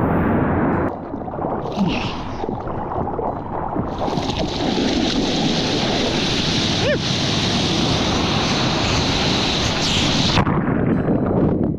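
Breaking whitewater rushing and splashing around a surfboard, heard from right at the water surface, with wind buffeting the microphone. A brighter hiss of spray joins about four seconds in and drops away shortly before the end.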